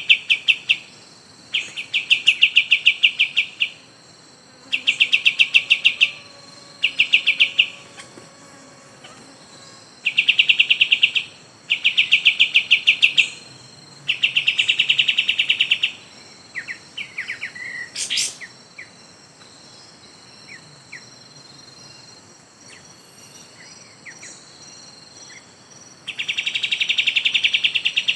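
A bird's rapid, pulsed trill given in repeated bouts of one to two seconds with short pauses between them, over a steady high insect drone. A long gap in the middle holds only a few softer chirps and one sharp click.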